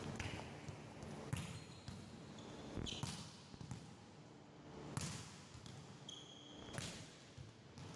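Volleyballs being dug and bouncing on a hard gym floor: about four sharp smacks, one every two seconds or so. Short high sneaker squeaks come between them.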